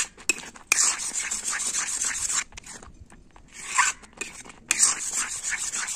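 Metal spatula scraping and stirring a thick milk-and-paneer mixture around a metal kadhai in repeated strokes, with a short lull midway. The constant scraping keeps the thickening kalakand from sticking to the pan and changing colour.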